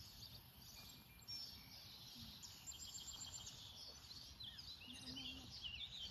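Faint birdsong: small birds chirping with short, quick notes, more of them near the end, over a steady low outdoor rumble.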